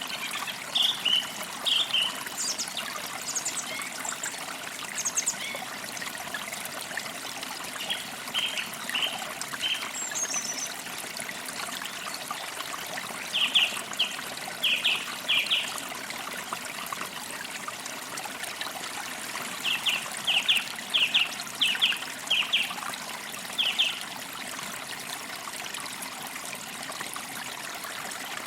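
A forest creek trickling steadily, with birds chirping over it: short quick chirps in several bursts of a few notes each, and a few higher, thinner notes.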